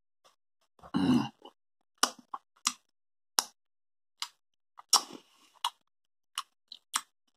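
A short low grunt from a man with his mouth full about a second in, then scattered wet mouth clicks and lip smacks as he chews an orange Fritt chewy candy.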